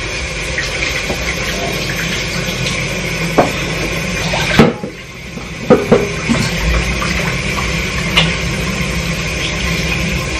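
Kitchen tap running in a steady rush, with a few sharp clinks and knocks of dishes. The flow drops off briefly around the middle and then picks up again.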